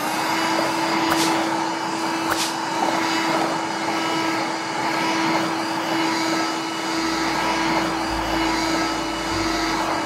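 Toy vacuum cleaner running: a steady whirring motor with a constant hum, unbroken for the whole stretch.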